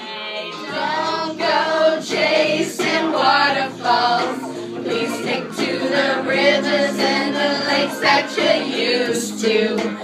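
A group of people, mostly women, singing along together over recorded pop music; several voices overlap.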